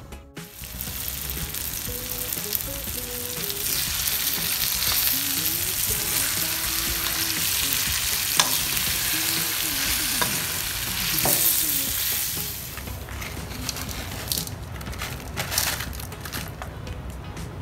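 Spiced chicken pieces frying in a metal pan, sizzling steadily while they are stirred. The sizzle fades about 13 seconds in, and scattered clicks and scrapes follow.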